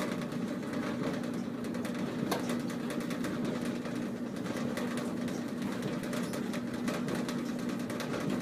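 Clothes dryer running: a steady motor and drum hum with one constant low tone, and light ticks scattered throughout as the drum turns.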